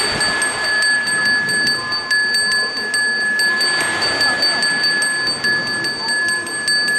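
A Balinese Hindu priest's brass hand bell (genta) rung continuously with quick, even strokes, about four to five a second, its bright ring held without a break.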